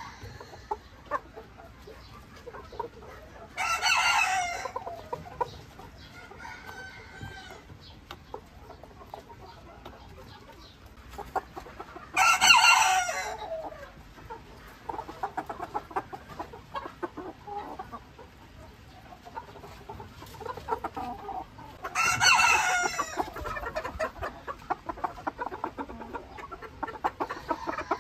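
Ko Shamo rooster crowing three times, each crow about a second and a half, roughly every nine seconds, with scattered small clicks between the crows.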